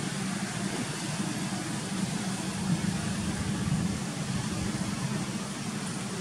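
Steady low hum with an even hiss over it, unbroken and without distinct events.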